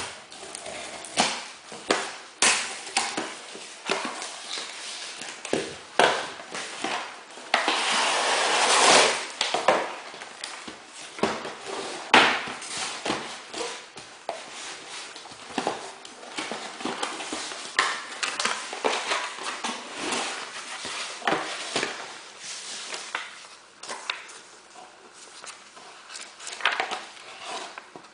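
Handling noises from a GSM alarm kit and its packaging: irregular clicks and knocks, with a louder stretch of rustling about eight seconds in and a sharp knock a few seconds later.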